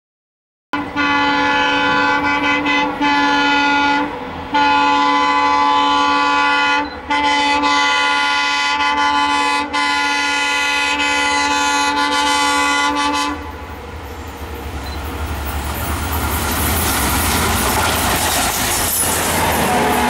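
Locomotive horn sounding in three long blasts, the last held for about six seconds, then a train running past with the rumble and rattle of its wheels growing louder.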